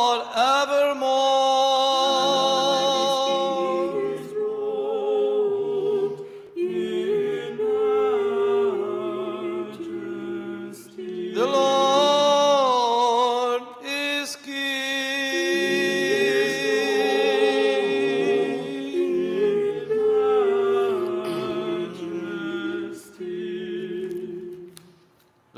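A small church choir singing a cappella in several parts, with held, wavering notes in phrases broken by short pauses: the closing refrain of the prokeimenon at Orthodox Vespers. The singing fades away near the end.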